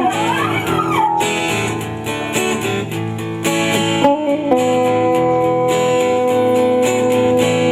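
Rock band's instrumental song intro, led by strummed guitars. It has a sweeping pitch slide at the start and one long note held through the second half.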